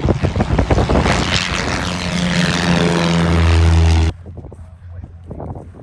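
A light propeller aircraft's piston engine running loud and close, settling into a steady drone, then cutting off abruptly about four seconds in; quieter background with voices after.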